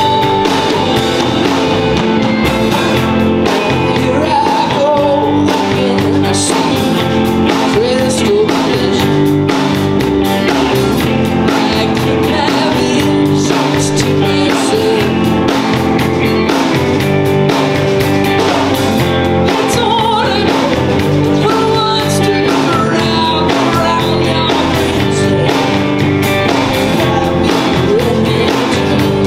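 Rock music with a singing voice, electric guitar and drums, playing steadily throughout.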